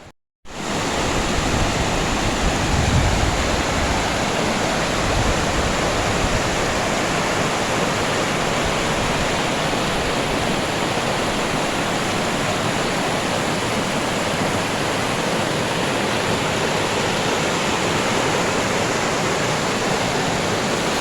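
Mountain stream rushing over rocks, a steady, even rush of water that starts abruptly about half a second in.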